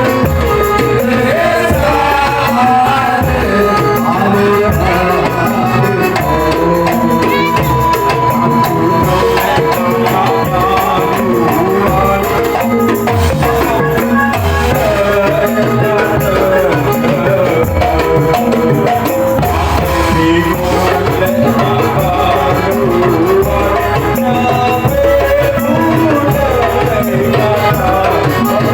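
Loud, continuous traditional folk music with regular percussion strokes and a wavering melody line.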